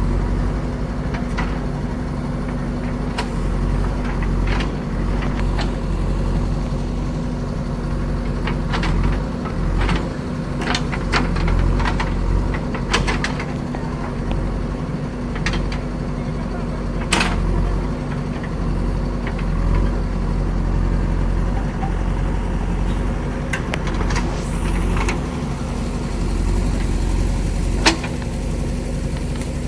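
Diesel engine of a JCB backhoe loader running steadily, with scattered sharp knocks and clanks.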